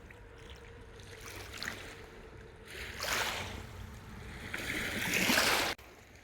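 Small waves washing against the shore, with a few small splashes, then two larger surges, the second the louder. The sound cuts off abruptly near the end.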